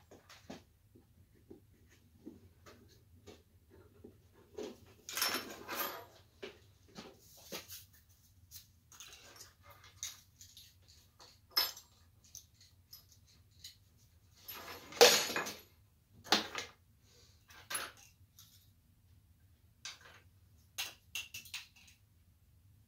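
Small metal lamp parts and tools clinking and rattling as they are handled on a workbench, with scattered clicks and two louder clatters about five and fifteen seconds in.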